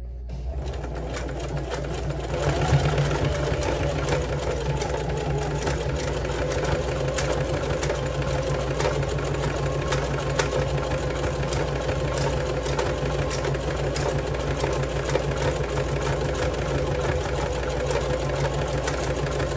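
Singer Heavy Duty electric sewing machine stitching through climbing rope: a steady motor hum with a rapid needle clatter. It starts just after the opening and picks up speed about two seconds in.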